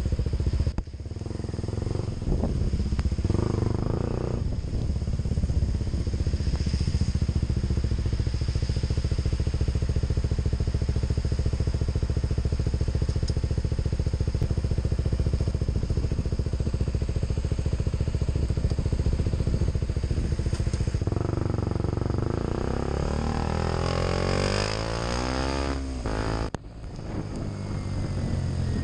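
KTM Duke 125's single-cylinder four-stroke engine running as the motorcycle rides in traffic, its sound dipping briefly about a second in and again near the end. Its pitch rises and falls over several seconds shortly before the second dip.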